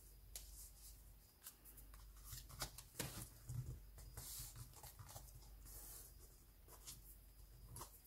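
Faint rustling and rubbing of paper as hands handle and press down a small handmade paper notebook, with scattered light brushing strokes.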